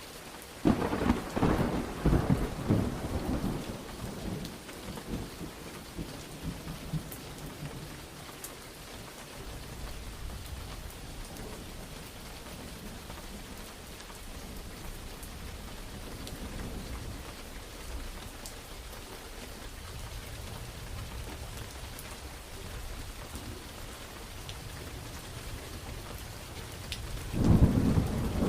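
Steady rain on a surface with thunder: a loud, crackling thunderclap about a second in that rumbles away over several seconds, then another clap near the end.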